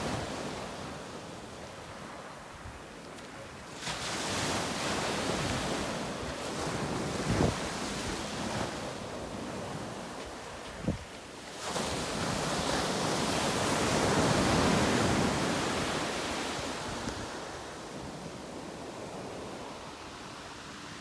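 Ocean surf breaking and washing up the sand, swelling twice: once about four seconds in and again, louder, from about twelve seconds in. Two short thumps stand out in the middle.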